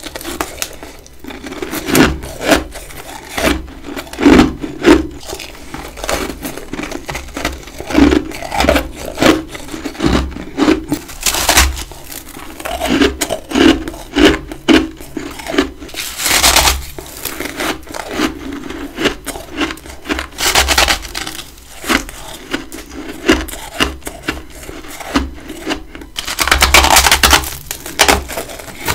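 Close-up crunching of big chunks of humidifier-freezer frost being bitten and chewed, with short crisp crunches every second or so. There are a few longer, louder crunches about halfway through and near the end.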